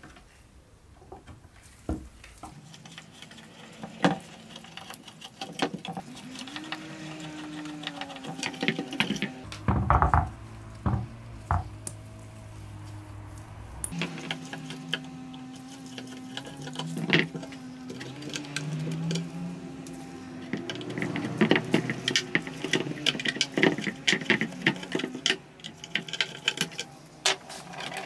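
A screwdriver working slotted screws out of a small metal hinge on a wooden cabinet door, with the hinge handled: many small metal clicks and scrapes. They come thickest in the last several seconds.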